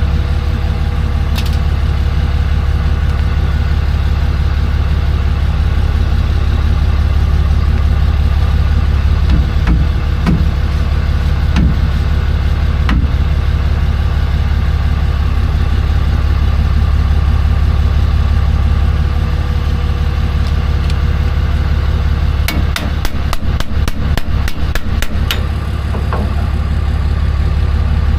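Truck engine idling steadily, with a few scattered metallic knocks partway through and a quick run of clicks near the end.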